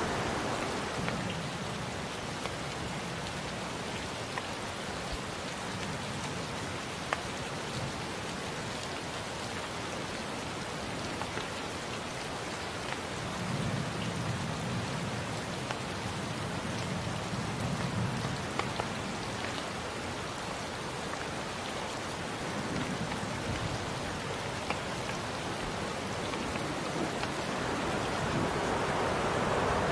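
Steady rain falling, with sharp ticks of single drops striking close by, and low rumbles of thunder about halfway through.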